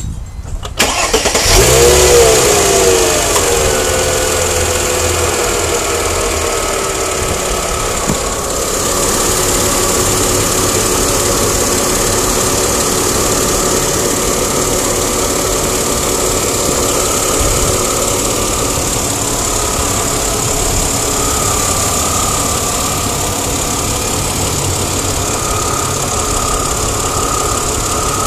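Chrysler Crossfire's 3.2-litre V6 cranking and starting about a second and a half in, revving up briefly and settling within a couple of seconds to a steady idle, with a ticking that the owner cannot account for.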